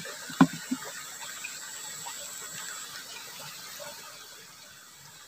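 Small ditch stream flowing steadily over shallow ripples, with a couple of light knocks about half a second in.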